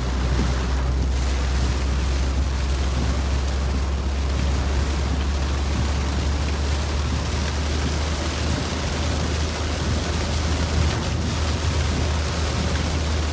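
Heavy rain falling on a moving car and its tyres hissing on the waterlogged road, heard inside the car's cabin over a steady low rumble from the car.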